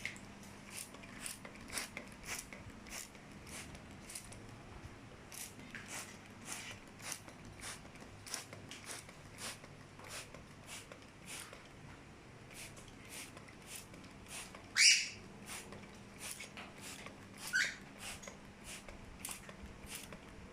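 Cockatiels bathing: a run of short splashes and flicks of water, with two loud, short chirps rising in pitch, the first about fifteen seconds in and the second about two and a half seconds later.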